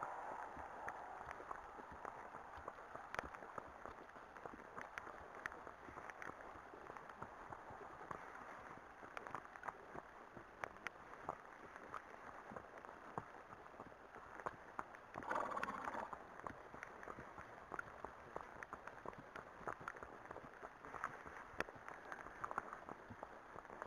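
Horses walking, hooves clopping in irregular steps on the lane and grass verge, with a brief louder rush of noise about fifteen seconds in.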